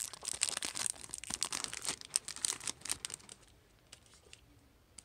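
Foil wrapper of a Pokémon trading-card booster pack crinkling and tearing as it is opened by hand: a rapid run of crackles that dies away about three seconds in.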